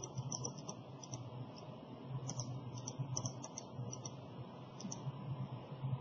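Faint clicking of a computer keyboard and mouse, a scattering of light taps, over a steady low hum.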